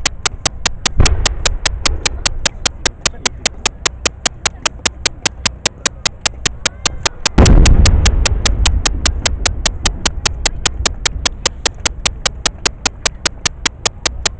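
Aerial fireworks shells bursting: a bang about a second in, then a much louder boom about seven seconds in whose rumbling echo fades over the next couple of seconds. A steady rapid clicking, about four or five clicks a second, runs under it.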